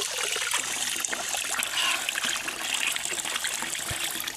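Spring water pouring from the open end of a black plastic pipe in a steady stream, splashing as it falls to the ground.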